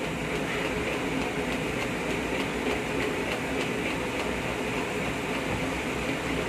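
Egg yolk and Blue Band margarine being beaten in a bowl until fluffy: faint regular clicks of the whisking, about three a second, over a steady mechanical hum.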